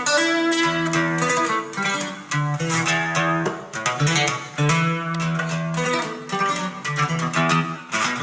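Instrumental guitar music, quickly picked notes over a steady bass line, played back through a Pioneer PE-101A full-range speaker and picked up by a camera's built-in microphone.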